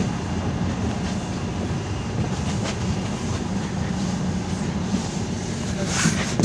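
Cabin noise of a PAZ-320405-04 "Vector Next" bus under way: a steady low drone from the engine and running gear, with road noise over it. A short burst of higher noise comes near the end.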